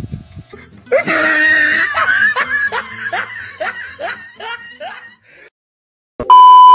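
A man laughing loudly in a run of falling 'ha' syllables, about two a second, which fades out after about four seconds. Near the end a loud, steady, single-pitch beep sounds for about a second and cuts off abruptly.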